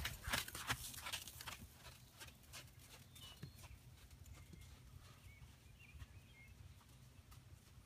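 Horse's hooves on a sand arena, loud sharp thuds and clicks for the first second and a half as the horse passes close by, then fainter footfalls as it moves away.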